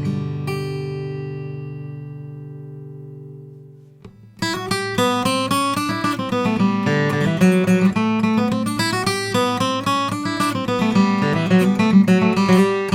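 Martin OMJM acoustic guitar with an Engelmann spruce top, played solo. A chord rings and slowly fades for about four seconds, then after a short break a busy picked passage of quick single notes and chords starts up.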